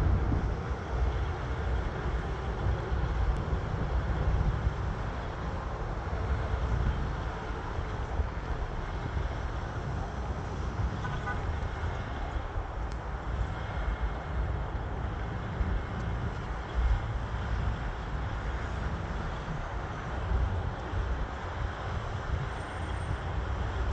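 Steady outdoor background of road traffic noise with a gusty low rumble of wind on the microphone.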